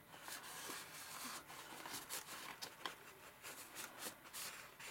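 Faint rustling and light ticks of paper and card being handled: a handmade lap book journal's pages, flip-up and tag being moved by hand.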